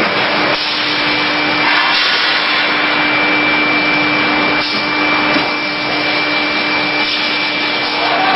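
Automatic hot-forging press line running: a steady, loud hiss and rush of machinery with a constant hum and a thin high whine, broken by a few faint knocks.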